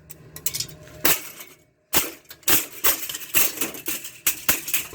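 Old, yellowed plastic box fan grill snapping and cracking apart: one sharp snap about a second in, then a quick run of about seven snaps from about two seconds in. The plastic has gone so brittle that it breaks at the slightest bend.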